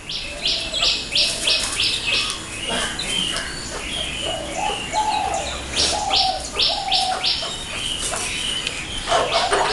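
Birds calling: two runs of five or six short, harsh chirps, about three a second, one near the start and one about six seconds in. Lower, repeated call notes sound in between, with scattered small chirps, and a louder burst of calling comes near the end.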